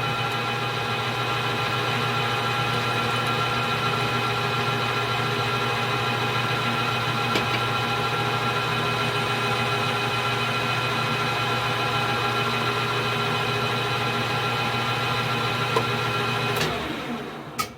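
Metal lathe running steadily, facing the end of a steel bar under power feed, a constant machine hum. It winds down about a second before the end, with a click just after.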